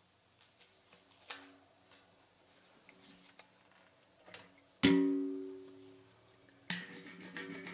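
Acoustic guitar music: a few sparse plucked notes, a loud strummed chord about five seconds in that rings out and fades, then steady strumming near the end.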